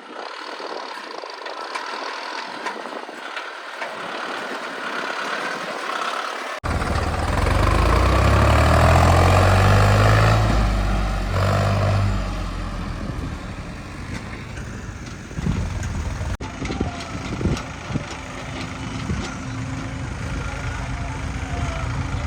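Heavy machinery's diesel engine running, in clips joined by sudden cuts; the engine is loudest a few seconds after the first cut.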